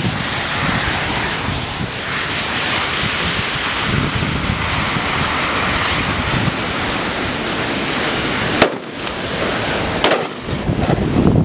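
A mass of burning safety matches flaring in a big blaze: a loud, dense, steady hiss. Near the end two sharp bangs come about a second and a half apart, and after them the hiss thins out.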